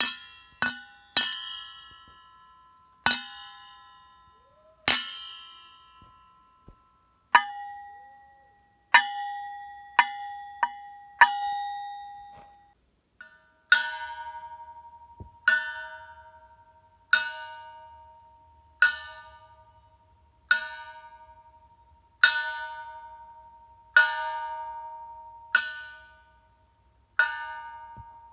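A bell chime struck over and over, each strike ringing out and fading. For the first half the strikes come unevenly and change pitch; from about halfway the same chime repeats evenly, about every second and a half to two seconds.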